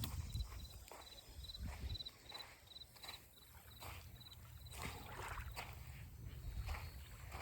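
Footsteps on a sandy riverside beach, with wind rumbling on the microphone. A short high chirp repeats about three times a second and stops about two-thirds of the way through.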